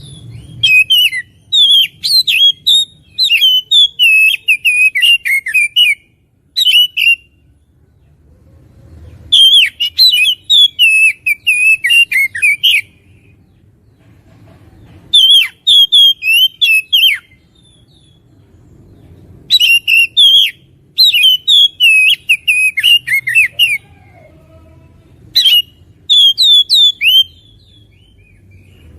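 Oriental magpie-robin (kacer) in full song: loud bursts of fast, varied whistled phrases with sharp high notes, broken by short pauses of a second or two.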